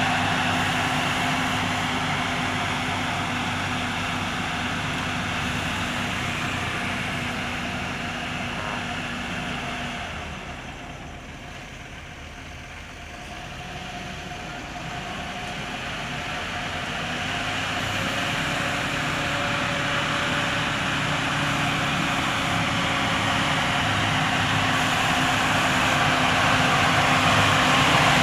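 Diesel engine of a Sakai pneumatic-tyred road roller running steadily as it compacts a fresh asphalt patch. It fades as the roller moves away, is faintest about twelve seconds in, then grows louder as it comes back.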